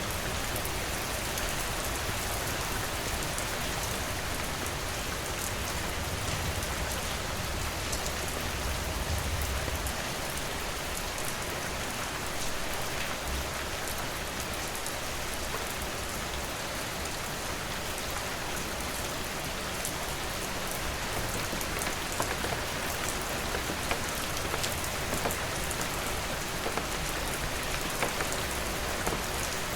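Steady rain falling and pattering on surfaces, with individual drops ticking here and there, a few sharper in the second half.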